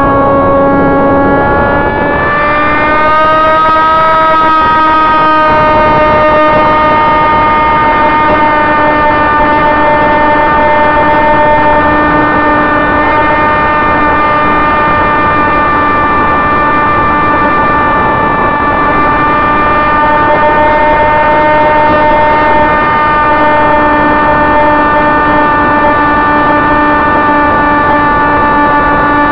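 Sonicmodell AR Wing's electric motor and propeller, heard from the onboard camera in flight: a loud, steady whine with many overtones that climbs in pitch about two to four seconds in, then holds level.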